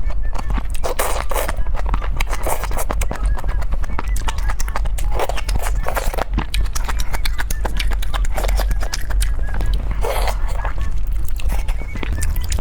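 Close-miked chewing and mouth sounds of someone eating, a dense run of rapid wet clicks and crackles with short louder bursts every second or two.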